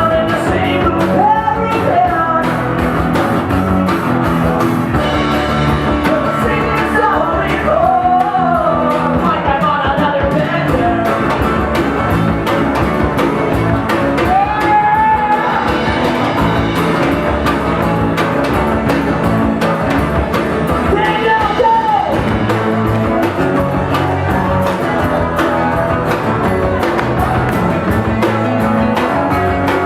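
Pop punk band playing live acoustic: strummed acoustic guitar with a voice singing over it, the sung lines coming in phrases between stretches of guitar.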